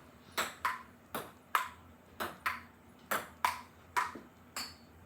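A ping pong rally played with a cat toy ball instead of a ping pong ball: about eleven sharp clicks of the ball off paddles and table, roughly two a second, the rally ending a little before the end.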